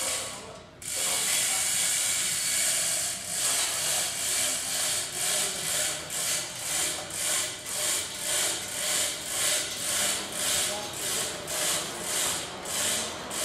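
Hand-chain hoist (chain block) being hauled hand over hand under the load of a steel bogie frame, its chain and ratchet rattling in a steady run of bursts, about two a second.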